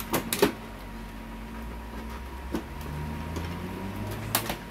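Hard plastic clicks and knocks of a print drum (imaging unit) being pushed and seated into a Samsung color laser printer: two sharp knocks at the start, a single click in the middle, and two more near the end.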